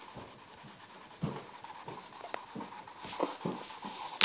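Marker pen scribbling on the paper of a colouring pad: a run of short, irregular scratchy strokes, with one sharp click near the end.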